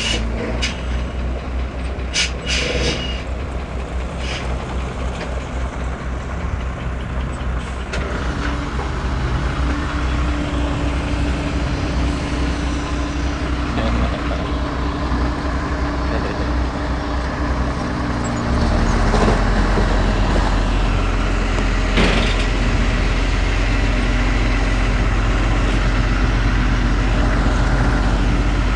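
Heavy diesel engine of earth-moving machinery running under load, a deep throbbing rumble with a steady whine through the middle; the engine gets louder and steadier about two-thirds of the way in. A few clanks near the start and a single knock later on.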